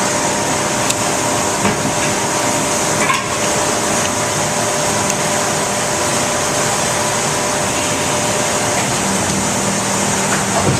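Steady factory machinery noise with several constant hums running under it, and a few light clicks.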